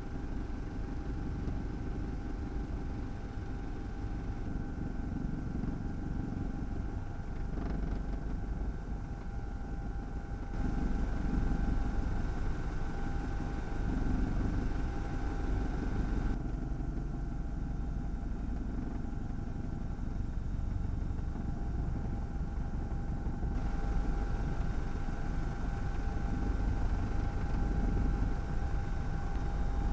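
Helicopter engine and rotor noise heard from on board: a steady low rumble with a constant high whine over it, jumping in level at a few abrupt cuts.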